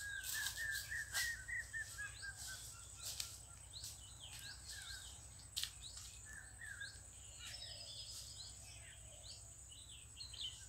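Several wild birds chirping and calling among the trees, with a quick run of short notes in the first two seconds and scattered chirps after, over a thin steady high tone.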